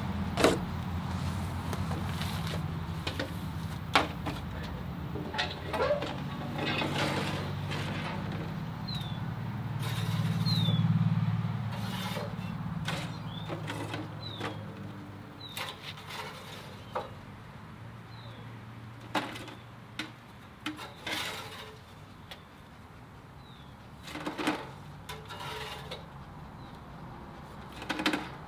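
Outdoor background: a steady low hum that swells about ten seconds in and then fades, with scattered knocks and clicks and a few short high chirps in the middle.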